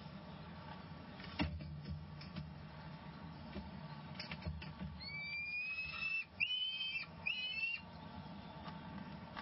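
Peregrine falcon chick calling: three thin, whistled calls about five seconds in, the first held for about a second and the next two shorter. A single knock comes about a second and a half in.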